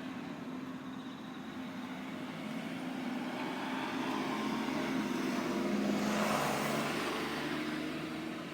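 A motor vehicle passing by, growing louder to a peak about six seconds in, then fading away.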